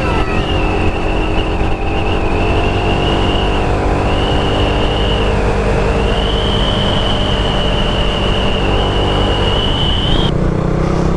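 Suzuki Raider 150 Fi single-cylinder motorcycle engine running steadily while riding. A high, steady, slightly wavering whine sits over it and cuts off suddenly near the end, when the engine note shifts.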